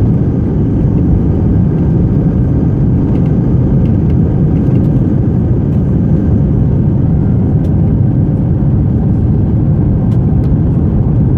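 Airbus A319 cabin noise: a steady, loud, low rumble of jet engines and airflow heard from a passenger seat, with a few faint ticks and rattles.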